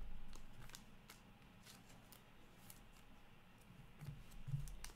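Faint handling of trading cards and a clear plastic card sleeve: scattered light ticks and rustles, with a couple of soft thumps about four seconds in.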